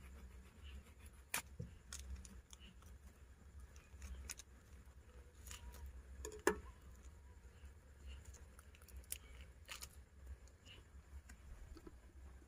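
Scattered small clicks and taps of things being handled in a small enclosed space, two sharper knocks about a second and a half in and past halfway, over a low steady rumble.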